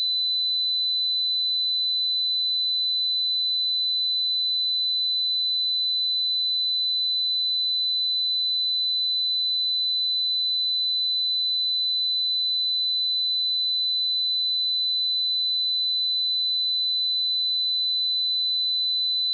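A steady, high-pitched 4007 Hz sine-wave test tone: one pure pitch held at an even level with no change.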